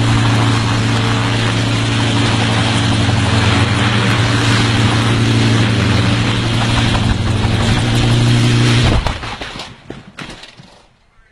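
A loud engine running steadily with a strong low hum, then dropping away sharply about nine seconds in, leaving a couple of seconds of fading noise.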